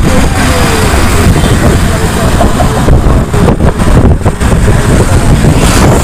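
Loud wind buffeting the microphone while riding a two-wheeler at speed, mixed with road and engine noise, a heavy rumble with a fluttering level.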